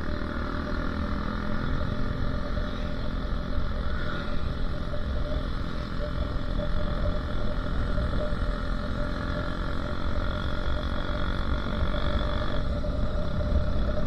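Motorcycle engine running steadily under way, with wind rumbling on the microphone; the engine note changes near the end.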